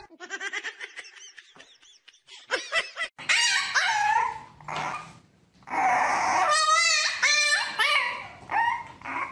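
Puppy whining and yelping in a string of short, high cries, including one wavering, warbling cry about seven seconds in. The first couple of seconds are faint.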